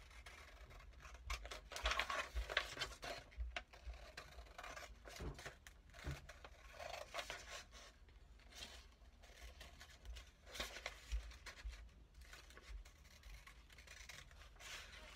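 Scissors cutting a sheet of paper: a quiet, irregular run of snips with the rustle of the sheet being turned.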